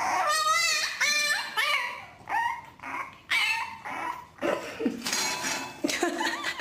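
French bulldog puppy whining: a run of short, high-pitched cries, several wavering in pitch, coming quickly at first and then more spaced out.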